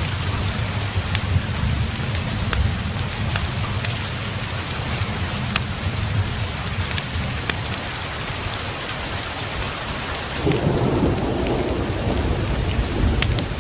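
Steady heavy rain with a low rumble and scattered sharp crackles, and a roll of thunder swelling up about ten seconds in.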